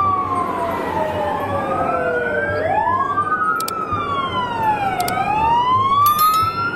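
Fire engine siren wailing: several overlapping tones sweep slowly up and down in pitch, each rise or fall taking two to three seconds.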